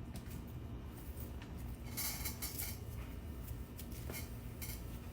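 Papery tomatillo husks rustling and crackling as they are peeled off by hand, in short irregular bursts with a denser rustle about two seconds in and a few sharp clicks.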